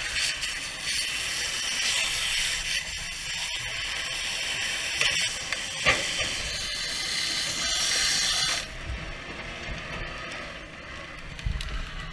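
Fire hose nozzle spraying water onto burning debris, a steady hiss with steam rising, with a few short clicks and clatters. The spray cuts off abruptly about eight and a half seconds in.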